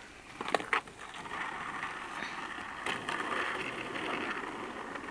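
Skateboard wheels rolling on rough asphalt, a steady grinding hiss, with a couple of clacks from the board in the first second and a single knock about three seconds in.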